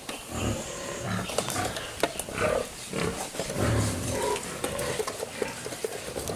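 Farm animals calling at intervals, with scattered clicks and knocks.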